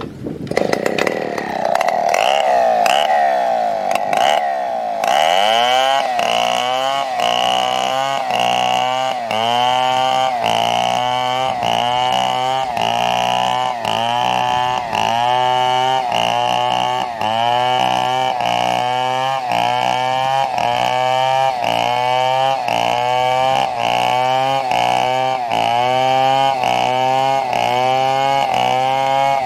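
Chainsaw cutting into a fallen coconut palm trunk. The engine runs at a steady pitch for about five seconds, then its pitch dips and recovers rhythmically, about one and a half times a second, as the chain bites into the wood under load.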